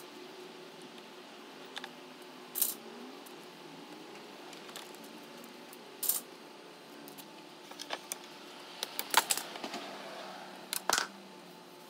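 Quick-release bar clamps being released and handled: a series of sharp clicks and clatters a few seconds apart, busiest toward the end as the wooden router template is lifted off the countertop.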